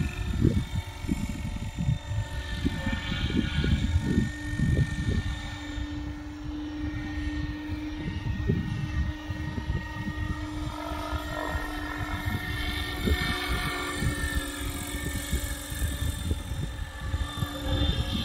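UH-1 'Huey' helicopter flying overhead, heard as a steady whine, with gusts of wind buffeting the microphone.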